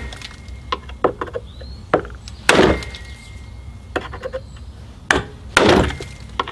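Flathead screwdriver pounded against the steel teeth of a push-on retaining ring on a plastic lawn mower wheel hub: an irregular run of sharp knocks and clicks, with two louder strikes about two and a half and five and a half seconds in. The pounding spreads the ring's teeth so that the ring can be pried off.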